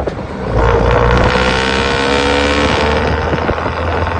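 Isuzu C240 four-cylinder diesel engine running through a four-divider Lamigo muffler; the revs pick up about half a second in and climb slowly.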